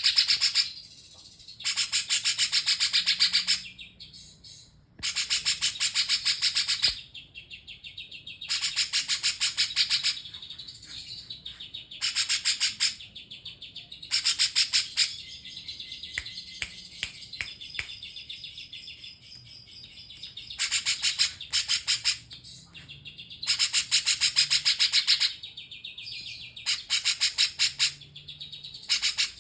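A songbird the keepers call a 'cungkok' singing a song like a cucak jenggot's: loud phrases of rapid repeated high notes, each a second or two long, coming every few seconds, with softer twittering between them.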